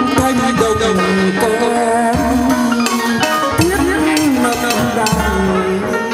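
Vietnamese traditional ritual ensemble music: the đàn nguyệt moon lute and đàn tranh zither play a sliding, bending melody over clicks of wooden clappers, with a deep drum beat about every second and a half.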